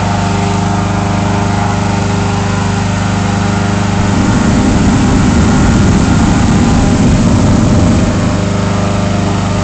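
Small engine running steadily, with a louder, rougher sound added for about four seconds in the middle.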